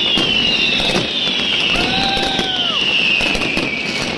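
Fireworks going off at close range: a dense, continuous crackle of pops and bangs, overlaid with shrill whistles that slide down in pitch one after another.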